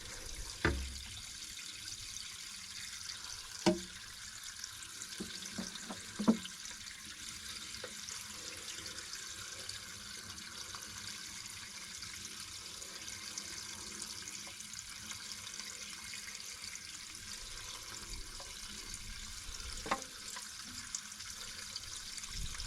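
Water flowing steadily out of an artesian well, a continuous rushing splash, with a few short knocks about a second, four seconds, six seconds and twenty seconds in.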